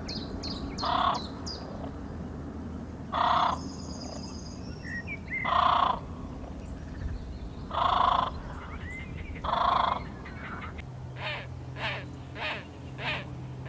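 A crow cawing: five harsh caws about two seconds apart, then a quicker run of shorter caws near the end. Small birds chirp high in the background at the start, and a low steady hum comes in during the last few seconds.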